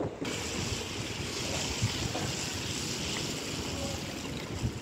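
Wind rumbling on the microphone under a steady hiss of rain on a wet street. The hiss sets in suddenly just after the start.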